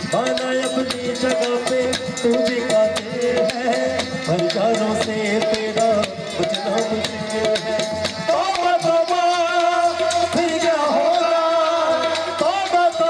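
Live Punjabi folk music: quick tabla strokes under sustained instrumental notes, with a man's singing voice coming in about eight seconds in, sung into a microphone.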